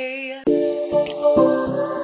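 A woman's voice holds a long sung note with vibrato on "day", cut off about half a second in. An upbeat intro music track then starts, with short repeated notes and a rising sweep.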